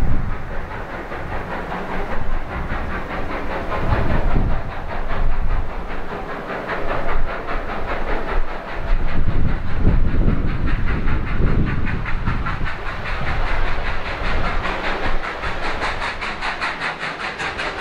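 Ex-Queensland Railways steam locomotive No. 218A working: a fast, even chuffing over a hiss of steam, with a few deeper rumbles along the way.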